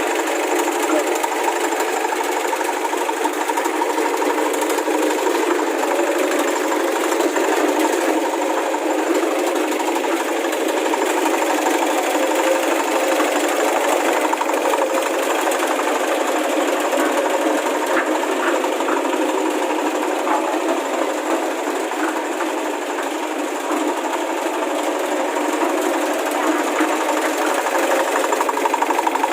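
Small engine of a restored cement mixer running steadily.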